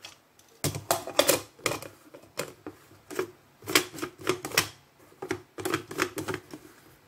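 Plastic blade lid of a personal blender being fitted and screwed onto the cup: a quick, irregular run of plastic clicks and rattles.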